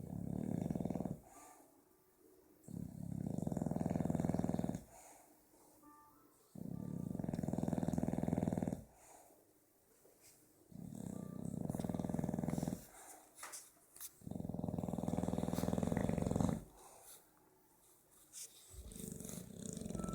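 Bulldog snoring in long, fluttering snores about two seconds each, a new one roughly every four seconds, six in all with the last starting near the end. The rattling snores sound like a motorbike with a broken exhaust.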